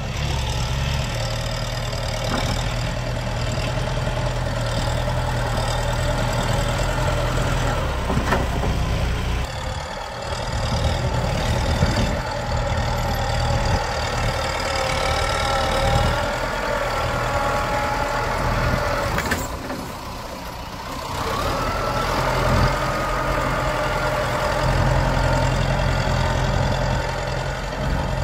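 Kubota M7040 tractor's diesel engine running under load as its front blade pushes soil, the engine note shifting up and down, with two brief dips in level about ten and twenty seconds in.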